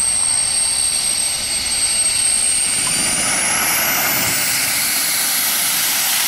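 Small jet turbine engine on a model of the New York Central M-497 "Black Beetle" jet train, running with a loud rushing exhaust and a high, thin whine that rises sharply in pitch about three seconds in.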